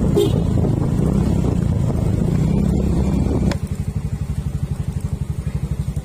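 Motorcycle engine running, then about three and a half seconds in a click and an abrupt drop to idle, beating evenly at about ten pulses a second.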